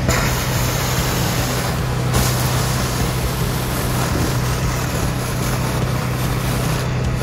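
Suction hose inlet slurping water and air off a shallow puddle with a steady noisy rush, which grows stronger about two seconds in, over the constant hum of the Honda engine driving a Masport rotary vane vacuum pump.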